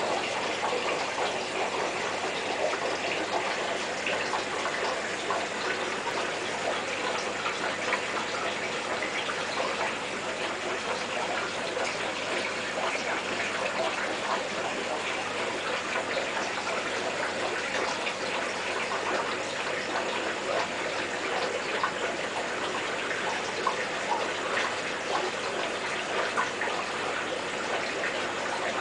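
Aquarium water circulation: a steady rush of splashing, bubbling water with a light crackle, from the tank's filtration running.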